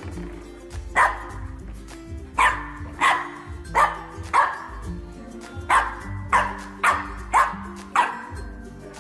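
A dog barking, about ten sharp single barks at uneven intervals, over background music.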